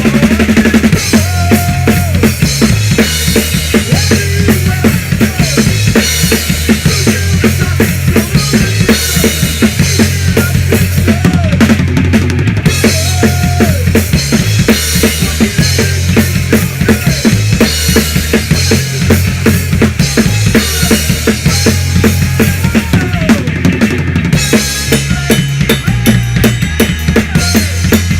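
A band playing loud rock at practice, the drum kit loudest: kick drum, snare hits and cymbals over sustained low bass notes.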